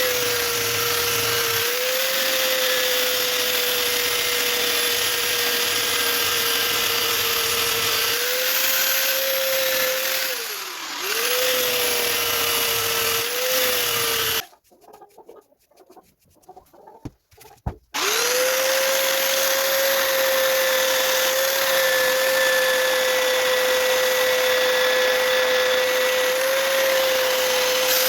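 A power tool's electric motor running at a steady high whine. It sags in pitch and recovers about ten seconds in, cuts out for a few seconds around the middle, then spins back up and runs steadily again.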